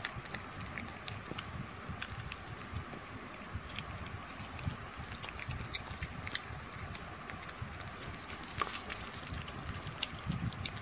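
Two kittens licking and lapping at a melting chocolate ice-cream bar, an irregular run of small wet clicks over a low background rumble.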